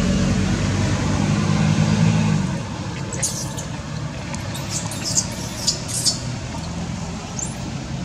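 A motor vehicle's engine hum for about the first two and a half seconds, then fading out. After that, a series of short, high-pitched squeaks from an infant macaque, the loudest a little past the middle.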